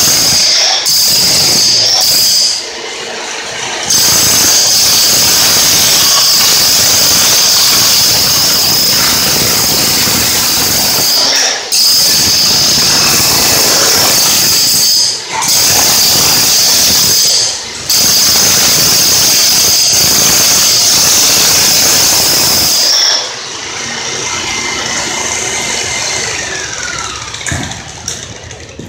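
Corded electric demolition hammer with a wide chisel blade chipping up floor tile: a loud, steady hammering clatter with a high ringing tone. It pauses briefly a few times and stops about 23 seconds in.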